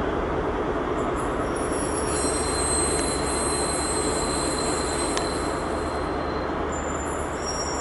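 Rear Class 43 power car of an InterCity 125 High Speed Train, its diesel engine running as the train pulls away, over a steady rumble of wheels on rail. A thin, high-pitched squeal is held through most of it.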